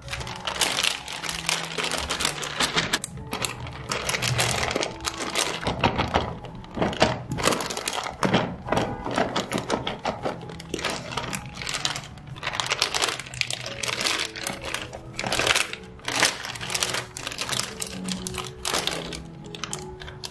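Plastic zip-lock bag crinkling and rustling in bursts as potato cubes are shaken inside it to coat them in corn starch. Soft background music plays underneath.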